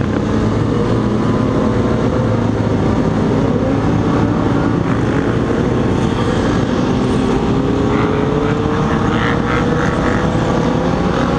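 Motorcycle engines of a group ride running steadily, one engine's pitch rising slowly through the second half as it speeds up.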